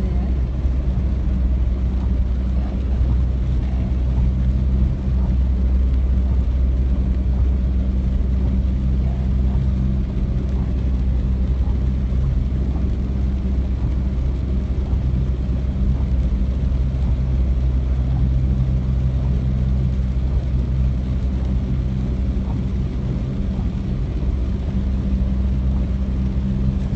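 A car's engine running steadily, heard from inside the cabin as the car drives through deep floodwater, with water washing against the front of the car.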